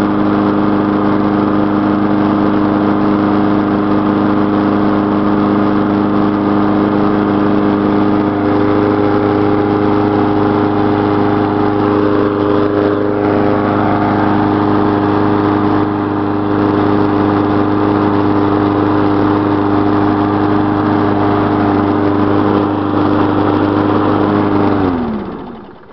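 Lawn mower engine running steadily at one speed while it burns off old gas, then shutting off near the end, its pitch sliding down as it winds to a stop.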